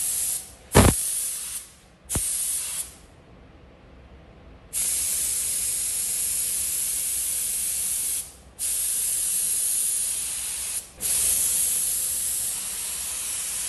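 Gravity-feed spray gun spraying paint with a hiss of air, in bursts that cut off sharply as the trigger is released: a few short bursts, then three long ones of two to four seconds. A sharp knock comes about a second in. The test fans are sprayed at different horn air pressures to show an over-pressurized and a correct spray pattern.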